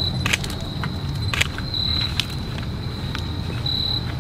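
Crickets trilling at a steady high pitch, swelling louder about every two seconds, over a constant low rumble, with a few sharp clicks scattered through.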